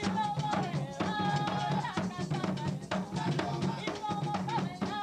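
Puerto Rican bomba music: hand-played barrel drums (barriles) beating a fast, dense rhythm, with voices singing over the drums.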